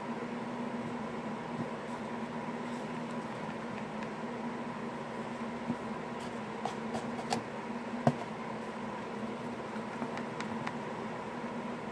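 A pencil stirring a thick, creamy play-dough mix of conditioner and cornstarch in a small cup, giving a few light taps and scrapes against the cup, the sharpest about two-thirds of the way in. A steady hum runs underneath.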